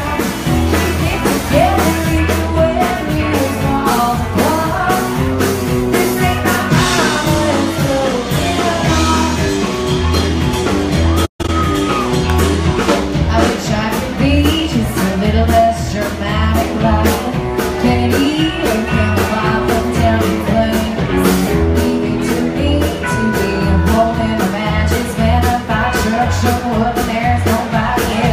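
Live band playing a country-rock song, with a woman singing lead over electric guitar, bass and drums. The sound drops out for a split second about eleven seconds in.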